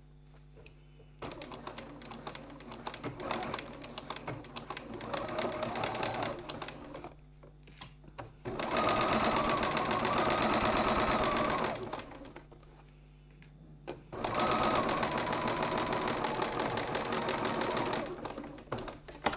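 Electric sewing machine stitching a seam in stop-start runs: a slower, uneven stretch first, then two fast steady runs with the motor whining at speed, each stopping abruptly.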